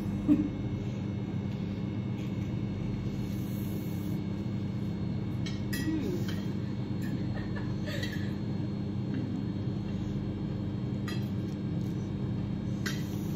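Metal fork and spoon clinking lightly against china plates a few times, over a steady low hum. A plate is set down on the table with a knock at the start.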